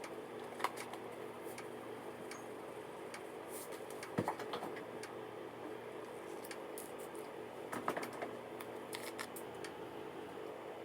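Steady indoor hum with a few small clicks and knocks of objects being handled, loudest about 4 seconds and 8 seconds in.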